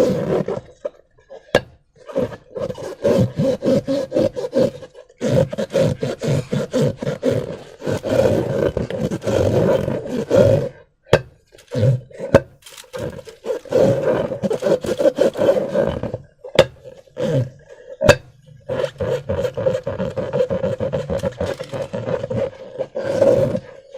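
Slime being squeezed and worked by hand: dense runs of crackling in bouts of a few seconds, broken by short pauses and a few single sharp clicks.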